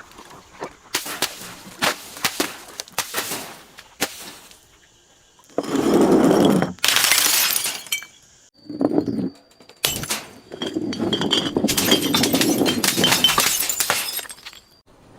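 Glass bottles being smashed and crushed: a run of sharp cracks, then several longer spells of dense crunching and shattering glass, each starting and stopping abruptly.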